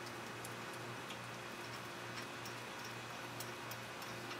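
Faint, scattered light ticks as the 10 mm rear brake caliper bolts of a 2002 Ford Explorer are unthreaded after being loosened, over a low steady hum.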